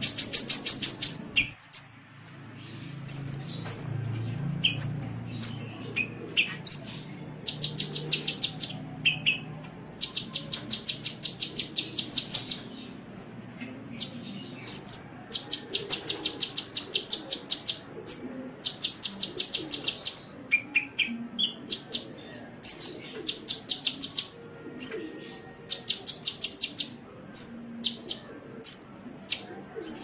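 Sunbird ('kolibri') song: sharp high chirps mixed with several runs of fast, evenly repeated trilled notes, each run about two to three seconds long, separated by short pauses.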